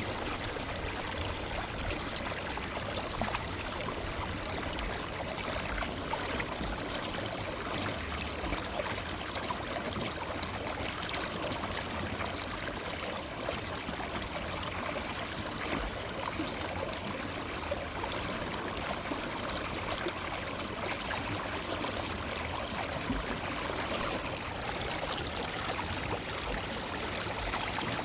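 A forest river or stream flowing steadily over rocks, with a continuous rushing and babbling of water.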